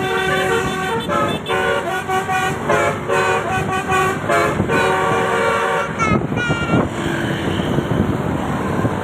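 Indonesian "telolet" multi-tone bus horn playing a quick tune of changing notes for about six seconds, then stopping, leaving road and vehicle noise.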